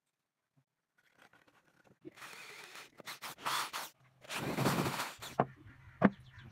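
Short bursts of scraping on wood, then an electric drill boring into a pine block for about a second, and a sharp click near the end.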